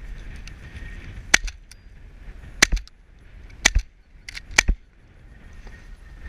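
Shotguns firing at geese overhead: about five sharp shots, roughly a second apart, from two guns, between one and five seconds in.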